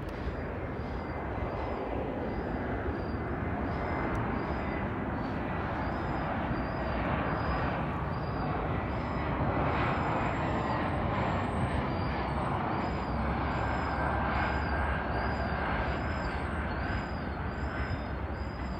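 Jet engines of an Embraer E-Jet regional airliner passing low overhead on final approach. The noise swells to a peak about halfway through and then slowly fades, with a whine that falls in pitch as the plane goes by.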